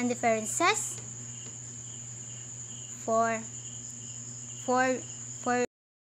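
Steady high-pitched insect trill running without pause, over a low steady hum. All sound cuts out suddenly near the end.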